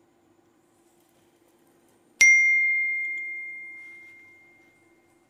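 A single bell-like ding, struck about two seconds in, whose one clear note rings on and fades away over about three seconds. It is the notification chime of an animated subscribe-and-bell button.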